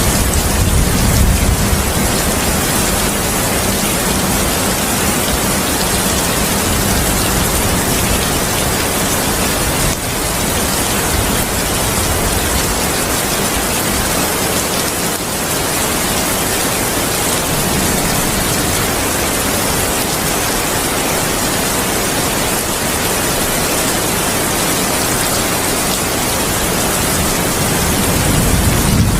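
Heavy rain falling steadily as an even hiss, with low thunder rumbling in the first couple of seconds and building again near the end.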